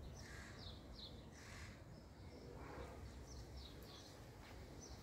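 Faint outdoor ambience with small birds chirping at a distance: a few short high chirps, a pair about half a second in and a small cluster past the middle, over a low background rumble.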